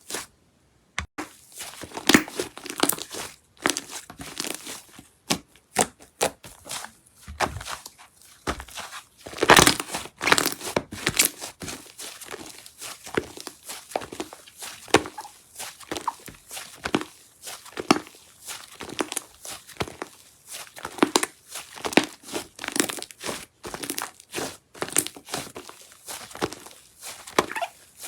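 Slime being squished and worked by hand, giving a dense run of irregular crackles and clicks, loudest about nine to ten seconds in.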